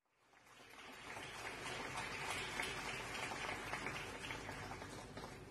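A faint, dense patter of many small crackles that swells in over the first second and eases off near the end.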